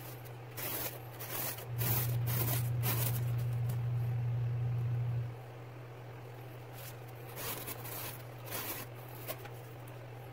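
Cardboard being handled and slid over a cardboard-covered bench: a few short scraping, rustling strokes in the first three seconds and again near the end. A steady low hum runs underneath and grows louder from about two seconds in to about five.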